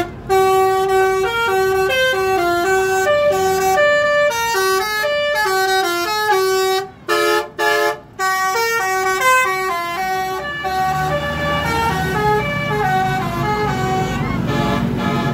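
Bus telolet horn, a multi-note musical air horn, playing a fast tune of short notes. Around the middle it gives a few sharp stabs with brief breaks between them, and in the last few seconds the notes grow fainter under the low rumble of the bus engine.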